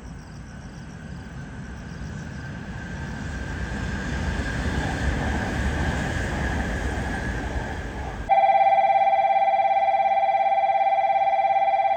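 A train running through, its rumble growing louder over the first eight seconds. Then an electronic platform approach bell starts abruptly and rings loudly and steadily for about four seconds, warning that a train is about to arrive.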